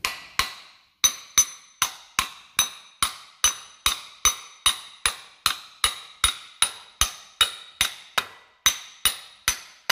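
Hammer blows on a steel fitting tool, driving the crankshaft sensor ring onto the crankshaft of a 3.0 TDV6 V6 diesel: about two and a half even strikes a second, each with a short metallic ring. The ring is being tapped home because the tool's pulling thread is stripped.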